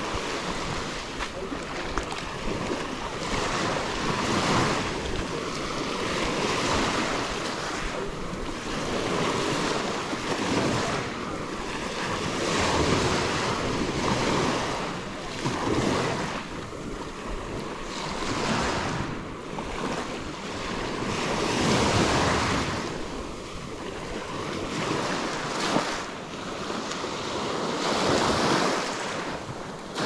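Ocean waves breaking and washing up on a sandy beach, swelling and easing every few seconds, with wind buffeting the microphone.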